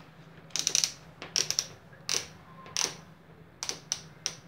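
Bosch GSR 7-14 E drill's two-position gear selector switch being worked by hand: a series of sharp plastic clicks, some in quick pairs or triples, spaced roughly half a second to a second apart.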